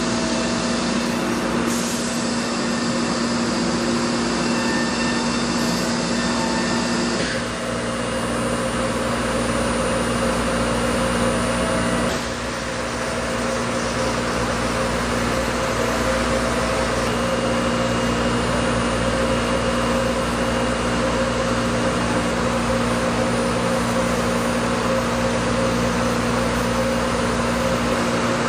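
Thermwood Model 90 CNC router running, its spindle cutting low-density foam with a long, thin bit: a steady machine noise with a steady hum, shifting slightly about seven and twelve seconds in.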